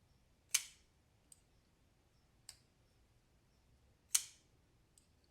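Kizer Mercury folding knife flipped open twice, the blade snapping into its locked-open position with a sharp click each time, about half a second in and about four seconds in. Lighter clicks in between come from the knife being closed and handled.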